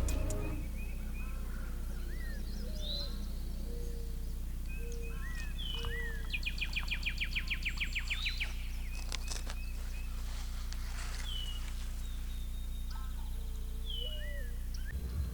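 Several wild songbirds calling and singing: short slurred whistles and chirps, with a fast trill about two seconds long in the middle. A steady low hum runs underneath.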